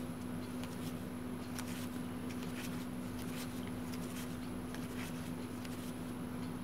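Light, scattered clicks and slides of stiff game cards being handled and moved from one hand-held stack to another, over a steady low hum.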